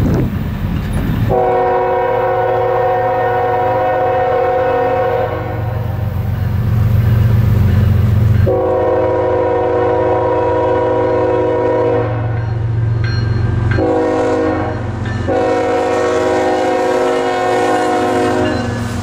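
Air horn of a Norfolk Southern GE ES44AC locomotive sounding the grade-crossing signal: two long blasts, a short one, then a final long blast. Under it is the low rumble of the approaching diesel, which reaches the crossing near the end.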